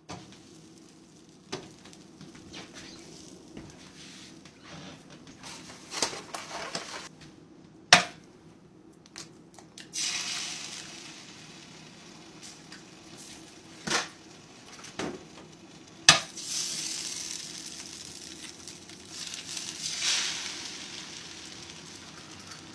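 Two eggs cracked onto a hot griddle into holes cut in slices of bread, one about eight seconds in and one about sixteen seconds in. Each crack is a sharp knock, followed by a few seconds of sizzling as the egg hits the hot surface, with lighter taps and clinks between.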